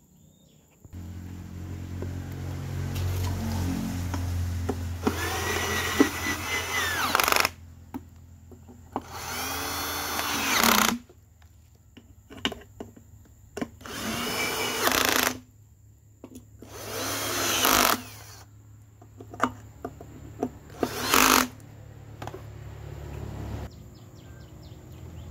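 Cordless drill driving the small hex bolts of an electric-bike hub motor's side cover: about five short runs, each speeding up and then slowing to a stop.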